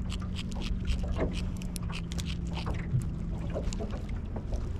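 Water lapping and slapping against a small boat's hull, with many short scattered clicks and splashes, over a steady low hum that stops about three-quarters of the way through.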